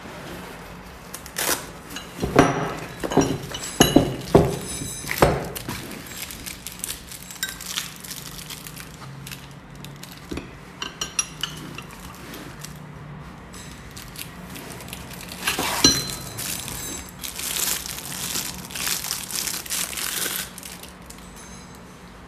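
Steel L-type socket wrenches clinking and knocking together as they are handled: a cluster of sharp clinks a few seconds in, scattered ticks, then a longer stretch of rustling and clatter.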